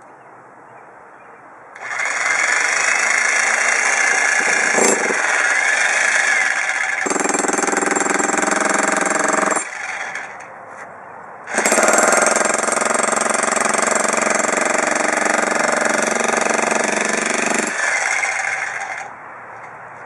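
Arksen 1500 W electric demolition hammer pounding into a concrete slab, running loud in two long bursts of about eight and seven seconds with a short pause between.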